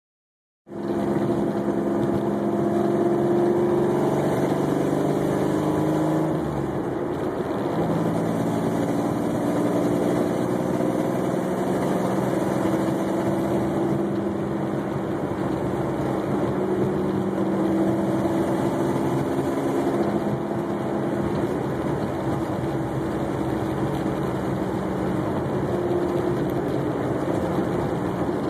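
Engine running with an exhaust leak at the header flange, which the owner puts down to loose flange bolts on the headers. It runs steadily, its pitch shifting briefly about seven seconds in.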